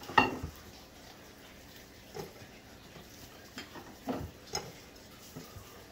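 Hands rubbing seasoning paste into a whole raw chicken in a glass baking dish: scattered soft, wet squelches and light taps, with one sharper, louder sound just after the start.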